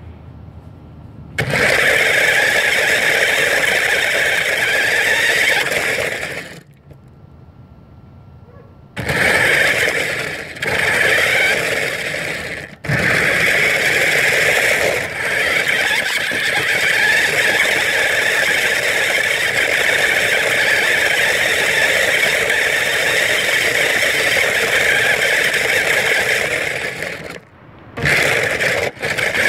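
Battery-powered toy car's electric drive motors and gearboxes running loudly as it drives on gravel. It starts about a second and a half in, cuts out for a couple of seconds around the six-second mark, then runs almost without a break, with a few short drops, until it stops briefly near the end and starts again.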